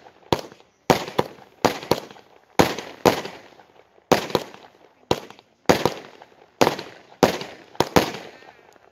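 Aerial fireworks going off in quick succession, about two sharp bangs a second, each dying away in an echoing tail.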